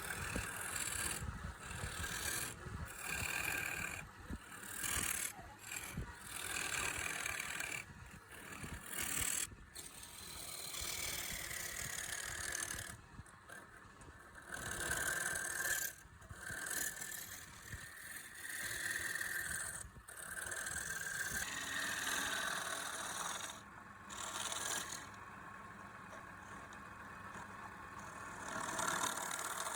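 Wood lathe running while a turning tool cuts into the spinning wood in repeated passes. Each pass is a rough, scraping rush lasting a second or two, with short breaks between them.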